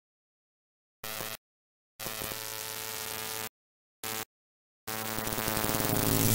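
Electric sparking sound effect: a buzzing crackle over a steady hum, in four bursts cut off by dead silence. A short one comes about a second in, a longer one at two seconds, a brief blip at four, and a last one from about five seconds that grows steadily louder.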